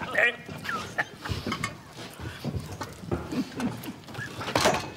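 Several men laughing together in loud, broken bursts, with voices overlapping.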